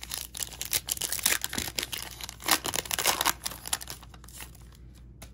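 Foil wrapper of a 2020 Panini Prizm baseball card pack crinkling and tearing as it is ripped open by hand. The crackling dies down after about four seconds, as the cards are slid out.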